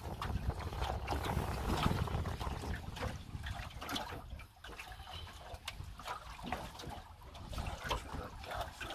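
Water lapping and splashing against the hull of a small boat sitting on choppy sea, in small irregular slaps. Wind rumbles on the microphone, strongest for the first three seconds or so.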